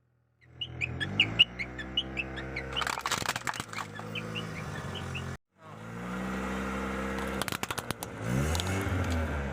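Car engine running, its pitch rising and falling as the car moves, with bursts of crackling crunches about three seconds in and again around seven and a half seconds as a tyre crushes objects.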